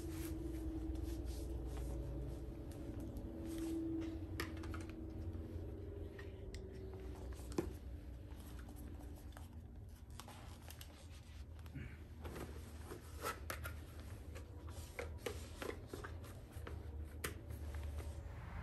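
Faint rustling, rubbing and small clicks of safety gear being handled and put on: the rubber and plastic of a half-face respirator and its straps, safety glasses and ear defenders. A low steady hum runs underneath.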